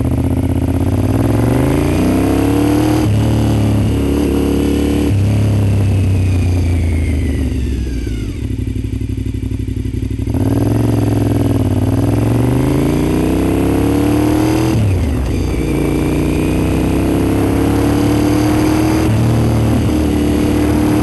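Honda RC51's V-twin engine heard from the bike while riding: it revs up with gear changes about three and five seconds in, and eases off with a falling pitch through the middle. It then pulls up through the gears again, with another shift about two-thirds of the way through.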